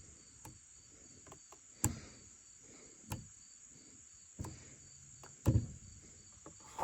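Insects trilling steadily and high, with scattered short knocks and thumps about once a second, the loudest a double thump about five and a half seconds in.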